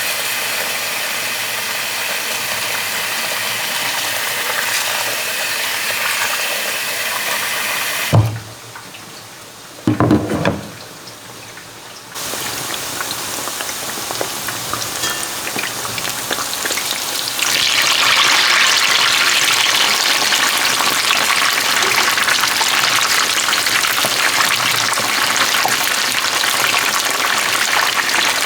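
Food frying in hot oil, a steady sizzle. It drops away for a few seconds after a sharp knock about eight seconds in, with a short thump in the gap. Then it comes back and gets louder about halfway through.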